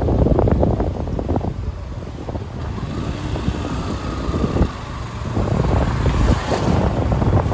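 Riding noise on a motorcycle: wind buffeting the microphone in gusts over the rumble of the engine and road.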